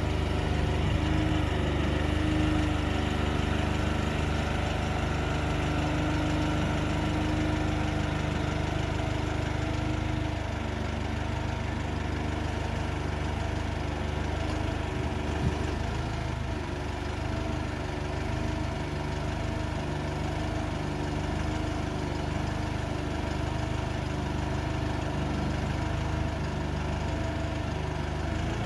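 Engine of an articulated aerial-lift truck running steadily at an even speed, as it does while powering the boom's hydraulics. A single sharp knock a little past halfway.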